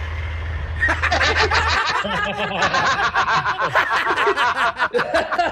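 Men laughing hard: a rush of rapid, breathy laughter begins about a second in and runs on, over a low steady hum that stops about two seconds in.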